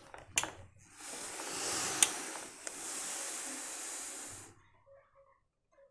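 Hose-fed steam iron pressing a jacket, letting out a steady hiss of steam for about three and a half seconds. A sharp click comes in the middle of the hiss, and a short knock comes just before it starts.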